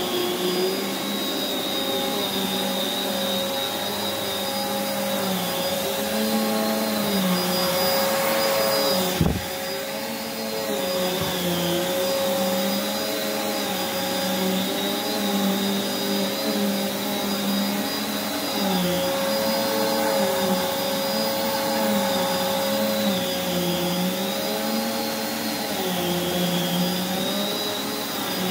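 Prolux X8 Elite backpack vacuum running with its EBK360 power nozzle on carpet. Its steady whine dips and recovers in pitch about every two seconds. There is a single sharp click about nine seconds in.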